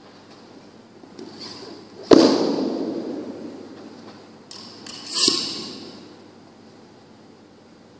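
A barbell being loaded with a bumper plate: two loud metallic clanks, about three seconds apart, each ringing away over a second or so, with a few softer knocks before them.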